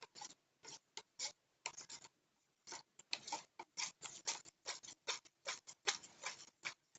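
Spoon stirring borax into hot water in a container, clicking against the sides and bottom about three to four times a second.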